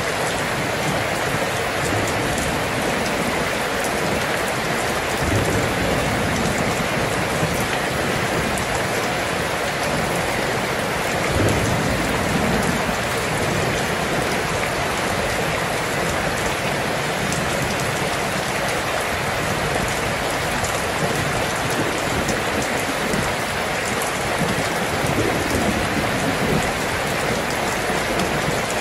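Steady heavy rain, a dense, even hiss of drops on water and ground. A couple of brief low rumbles come through about five and about eleven seconds in.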